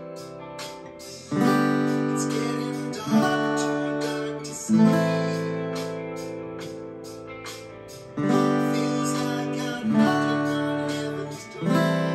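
Acoustic guitar strummed in open chords from the G, D, A minor and C progression, over a backing track with a steady beat. There are six strong strums about one and a half to two seconds apart, each chord left to ring and fade.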